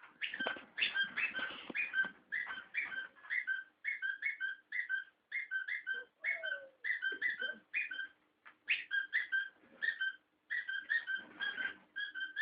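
A dog making rapid runs of short, high-pitched squeals, several a second, broken by brief pauses, with a few lower whimpering slides in the middle.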